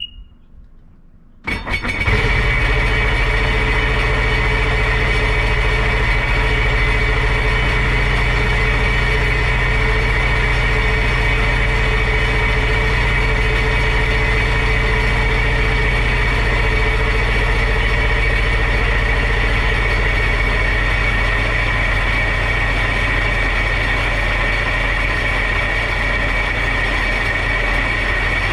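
Sea-Doo 4-TEC three-cylinder four-stroke jet ski engine cranking briefly and catching about a second and a half in, then idling steadily on its trailer out of the water. It is running on the old spark plugs to burn off oil left in the plug holes after the leaking plug tubes were replaced.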